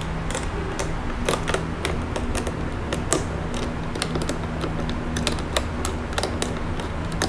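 Irregular light metallic clicks and taps of a small spanner and bolts as a passing lamp is fastened to its handlebar mounting bracket, over a steady low hum.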